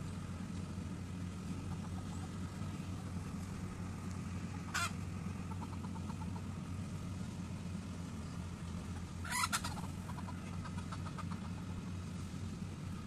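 Rice combine harvester's engine running steadily as it cuts the field, an even low drone. Over it, a bird gives a short sharp call about a third of the way in and a louder cluster of calls about two-thirds in.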